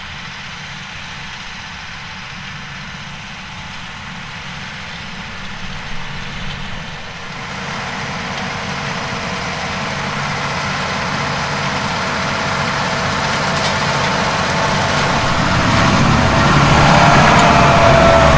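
John Deere 8370R tractor engine running steadily under load while pulling a Horsch Pronto 9DC seed drill through the soil. It grows gradually louder as it comes closer.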